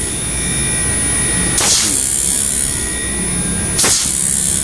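Inverter air-conditioner compressor running steadily on a test bench, driven by a repaired control board: a steady hum with a high whine, and a short whoosh about every two seconds. It keeps running without cutting out, the sign that the board's replaced power-supply capacitors have cured its shutdown.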